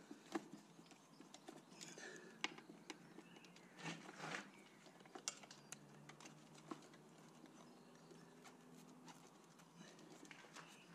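Faint, scattered clicks and light knocks, a few louder ones about two and four seconds in, over near-silent room tone: plastic parts being handled as a motorcycle's air box and its tube are pushed back into place.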